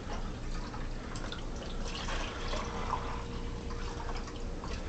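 Water trickling and dripping into a plastic measuring cup as it is filled over a stainless steel sink, in small, scattered splashes.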